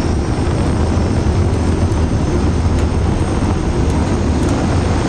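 The soundtrack of a Bloodhound SSC jet- and rocket-powered car run video, played through the hall's loudspeakers: a steady, loud engine rumble.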